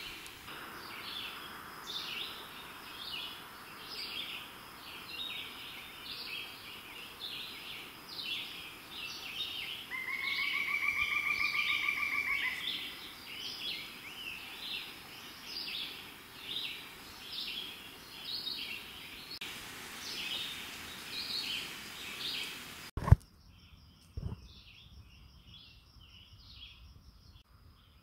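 Woodland ambience with birds calling, short high chirps repeating about once a second, and a pulsed trill lasting a couple of seconds about ten seconds in. A sharp click comes near the end, after which the background is much quieter.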